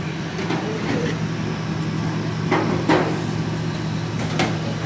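Steady low hum of an idling engine, with a few sharp knocks about two and a half, three and four and a half seconds in.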